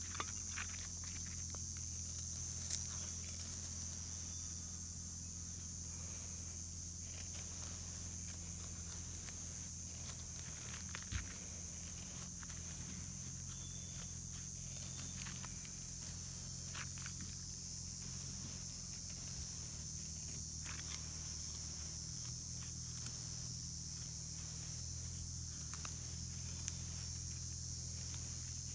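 A steady high-pitched drone with a low hum beneath it, and scattered small clicks and knocks of handling.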